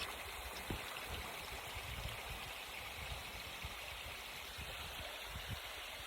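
Waterfall in high winter flow, rushing steadily down a rock face, with irregular low bumps on the microphone.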